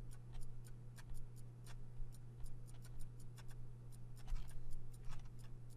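Computer mouse and keyboard clicking at an irregular pace, a few clicks a second, over a steady low hum.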